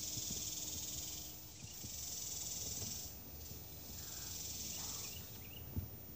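Cicadas buzzing in three long swelling pulses, each a second or two long, with a few faint high chirps and a soft thump near the end.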